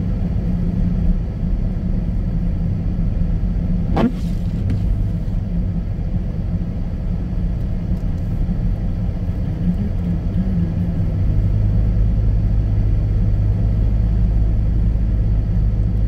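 Inside the cabin of a front-wheel-drive Jeep driving slowly on a snow-covered road: a steady low rumble of engine and tyres, growing deeper and louder about eleven seconds in. A single sharp click about four seconds in.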